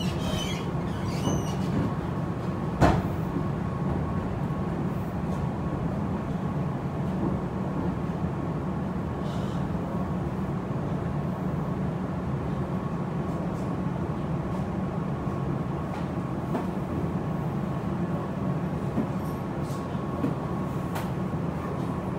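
Meitetsu 3500 series electric train running slowly, heard from inside the car: a steady low rumble with a faint steady high tone. About three seconds in comes a single sharp knock as a wheel crosses a rail joint.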